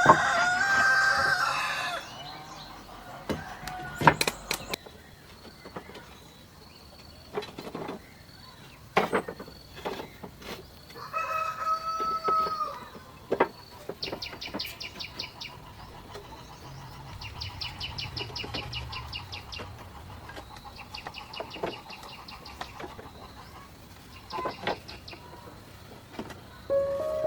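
A rooster crowing twice, near the start and again about eleven seconds in, with scattered sharp knocks and, in the second half, groups of rapid high chirping.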